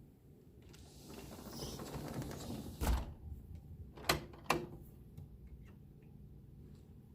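A door being closed: a rush of noise swells, then a heavy knock about three seconds in, followed by two sharp clicks about a second later, as of the latch or lock.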